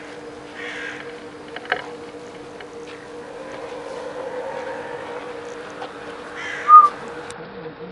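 A steady machine hum with two held tones, with a few short calls over it. A brief, louder call about seven seconds in is the loudest sound.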